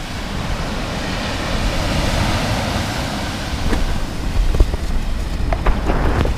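Waves breaking and washing up a shingle beach, with wind rumbling on the microphone and a few sharp clicks in the second half.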